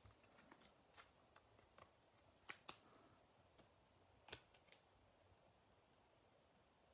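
Faint clicks and taps of trading cards being handled and set down on a tabletop, the sharpest a pair of clicks about two and a half seconds in and another a little past four seconds.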